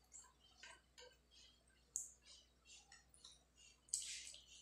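Quiet wet clicks and squishes of eating by hand: fingers mixing rice with fish curry on a plate. The sharpest clicks come about two and four seconds in.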